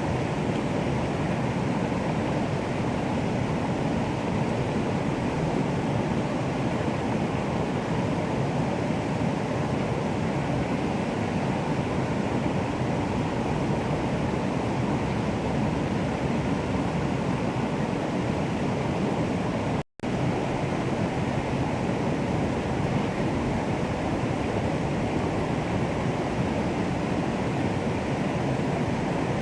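Steady, even rushing of flowing water, which cuts out completely for an instant about twenty seconds in and then resumes unchanged.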